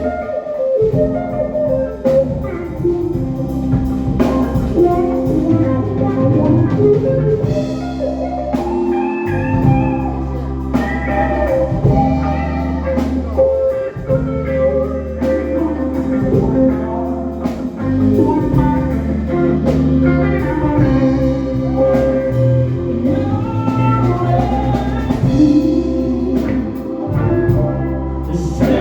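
A live band playing an instrumental stretch of a song, with drum kit and guitar over a steady low bass line.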